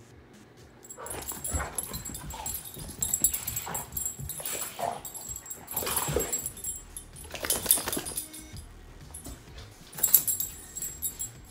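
Two large dogs, one a Cane Corso, play-wrestling, with whines and short barks in bursts over the scuffling. A lull comes near the end, then one last loud burst.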